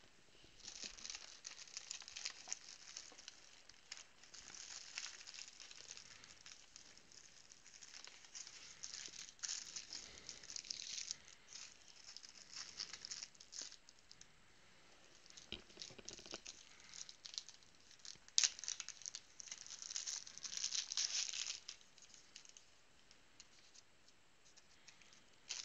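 Thin plastic penny sleeves and trading cards rustling and crinkling as cards are handled and slid into sleeves, in irregular bursts with a sharp click about eighteen seconds in.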